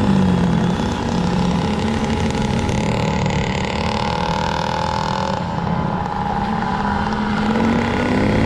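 Dirt bike engine running under way on the bike carrying the camera, its note dipping and rising with the throttle, mixed with wind noise.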